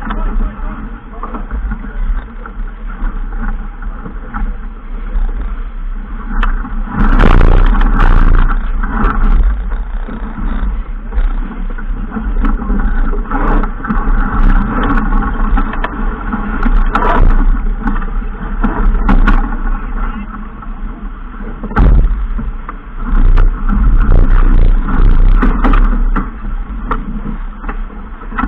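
Loud, rough rushing noise of a boat under way on the water, with wind surging against the microphone several times, strongest about a quarter of the way in and again in the last third.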